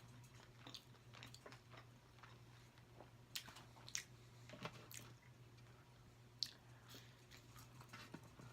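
A person chewing food close to the microphone, faint, with a few sharp mouth clicks and smacks scattered through it, over a steady low hum.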